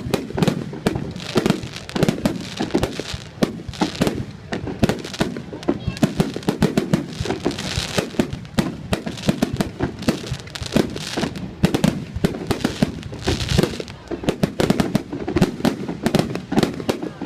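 Fireworks going off in a dense, unbroken barrage: many sharp bangs and pops overlapping one another, with heavier clusters of bursts about eight seconds in and again around thirteen seconds.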